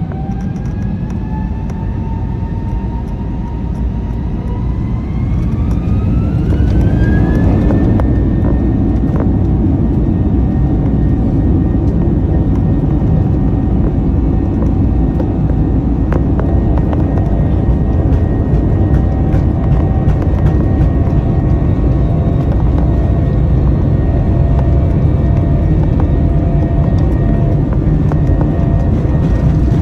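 Airbus A321 jet engines spooling up: a whine rises in pitch over the first several seconds while the rumble grows louder. Then whine and rumble hold steady at high thrust, as on a takeoff run.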